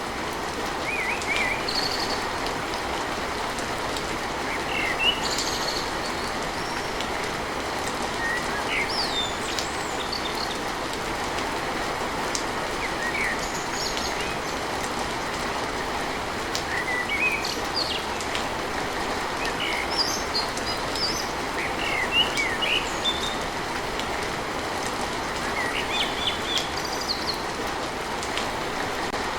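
Steady rain on a tin roof, an even dense hiss, with birds chirping in short rising and falling calls every few seconds.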